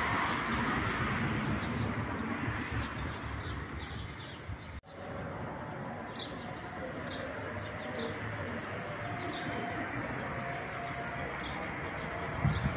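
Small birds chirping in short, scattered high calls over a steady outdoor background hiss; the sound cuts out briefly about five seconds in.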